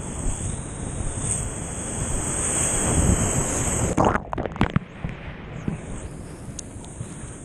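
Wind and surf rushing over a camera on the bow of a stand-up jet ski in breaking waves, growing louder. About four seconds in the camera goes under the whitewater, with a short burst of splashing and gurgling, then the sound drops to a quieter hiss of foam.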